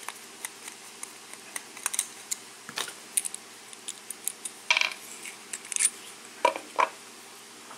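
Small metal lock parts clicking and tapping as a disassembled lock cylinder and its pins and springs are handled: a run of light clicks, with a few sharper ones in the second half.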